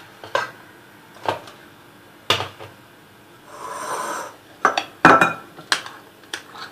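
A metal spoon knocking and clinking against a glass mixing bowl as a batter of cream cheese and condensed milk is handled, a scattering of separate sharp clinks, loudest about two seconds in and about five seconds in. A soft rasping sound lasting under a second comes near the middle.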